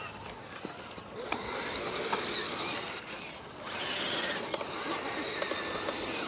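Electric RC scale rock crawler's motor and geared drivetrain whining as it climbs a rock face, with its tires scrabbling on the stone. The whine eases off briefly about halfway through, then picks up again.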